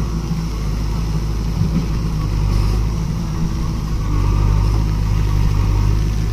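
JCB 3DX backhoe loader's diesel engine running steadily under working load while its backhoe arm operates.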